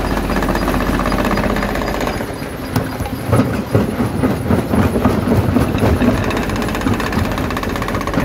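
Jaw crusher at a stone crushing plant running with a steady machine hum, then from about three seconds in, irregular knocks and cracks of rock being broken in the crusher.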